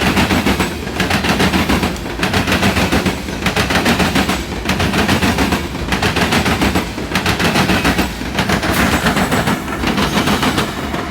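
Freight cars of a CSX lime train rolling past close by, their wheels clattering in rapid runs of clicks with short lulls about every second.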